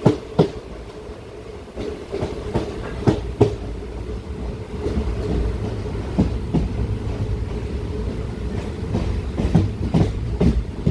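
Passenger express coach wheels clacking over rail joints at low speed, heard from on board: pairs of sharp clacks every few seconds over a steady low running rumble.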